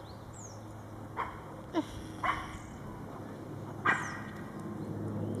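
Small dog giving four short, sharp barks, spaced unevenly, the last one the loudest.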